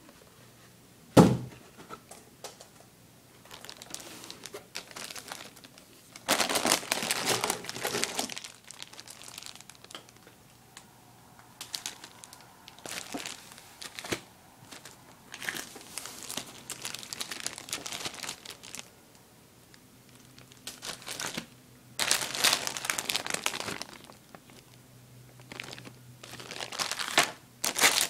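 Sealed plastic bags of Lego Technic parts being handled, crinkling in bursts of a second or two, several times. A single sharp knock, the loudest sound, about a second in.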